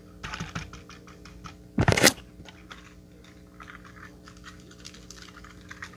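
Handling noise: small clicks and rustles of hands on plastic toy train engines and the recording phone, with a brief loud scraping rub about two seconds in.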